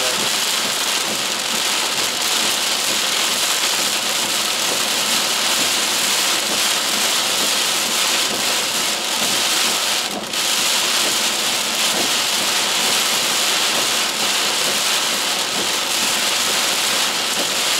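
Torrential rain pelting a car's windshield and roof, a steady dense hiss heard from inside the moving car.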